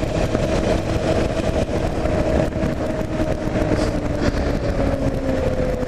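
Kawasaki KLR 650's carbureted single-cylinder engine running under way, its pitch easing down slowly over the last few seconds as the revs drop.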